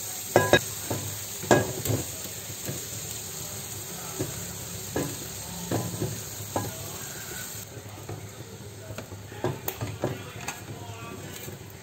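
Shrimp and bell peppers sizzling in a frying pan, with sharp metal clanks and knocks from a wok being set on the gas stove's grate and a spatula against the pan. The sizzling hiss drops off about eight seconds in.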